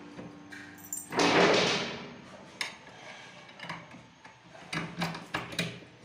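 Small knocks and clicks of door-lock hardware being handled against a wooden door as the handle plate is held in place and a screw is set in, with one louder rushing noise about a second in.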